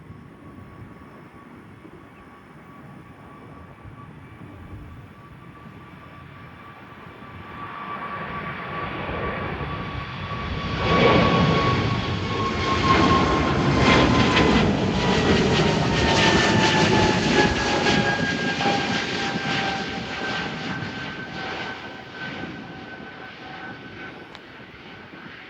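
Airbus A220-300 jet airliner taking off, its Pratt & Whitney PW1500G geared turbofans building to a loud roar as it passes and then fading. A steady engine whine drops in pitch as the aircraft goes by.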